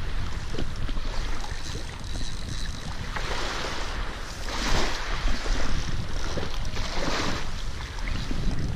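Wind rumbling on the microphone over small waves washing in on a pebble beach. The wash swells and fades about three times, loudest about halfway through.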